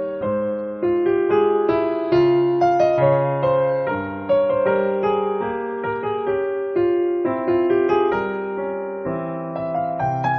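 Background piano music: a gentle melody over chords, notes struck and fading at an easy pace.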